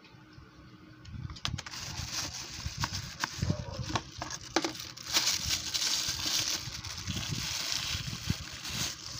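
Clear plastic wrapping crinkling and rustling as a flashlight is lifted out of a cardboard box and handled inside its bag, with scattered light taps and clicks. The crinkling sets in after about a second and a half and is loudest in the second half.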